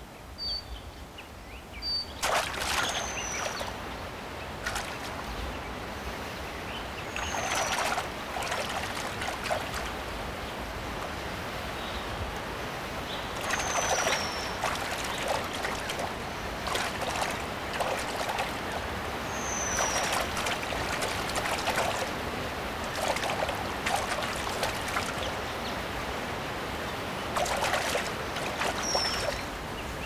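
Formosan whistling thrush bathing in a shallow stream: repeated bursts of splashing over the steady trickle of running water. A high, thin, falling squeak recurs about five times, several seconds apart.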